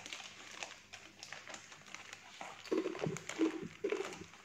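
Crunchy cassava chips being chewed, with a thin plastic bag crinkling as a hand moves in it: a string of short, irregular crunches and crackles that grow louder and closer together in the second half.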